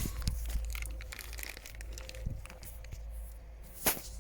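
Handling noise from hands working with small parts: scattered light clicks and crinkling over a steady low rumble, with one sharp click near the end.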